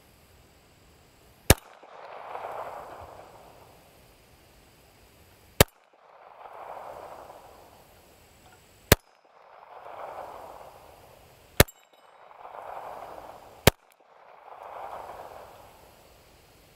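Five slow, deliberate pistol shots from a Walther CCP 9mm compact handgun firing 115-grain ball ammunition, spaced two to four seconds apart, aimed at small steel plates on a spinning pinwheel target. Each sharp crack is trailed by about a second of fainter sound.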